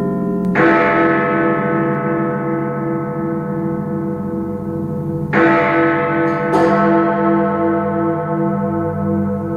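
The bells of Big Ben, London's clock tower, being struck: one stroke about half a second in, then two more about five and six seconds in. Each stroke rings on in a long, wavering hum that overlaps the next.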